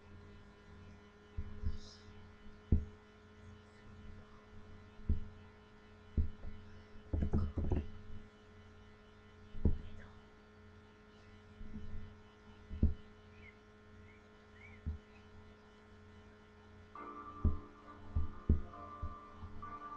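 Steady low electrical hum, with irregular dull thumps and knocks every second or two. Near the end a couple of steady higher tones come in.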